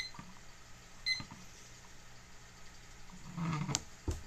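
Digital thermometer-hygrometer beeping as its buttons are pressed: two short high beeps about a second apart. Near the end comes a brief handling noise and a knock.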